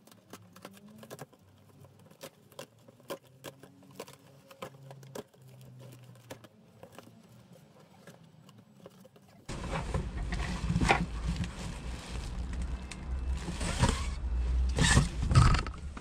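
Cardboard shipping box being opened by hand: at first faint, quick clicks and scratches at the flaps and tape. About two-thirds of the way in, the cardboard flaps are pulled open and the box is handled, with loud rustling and knocking.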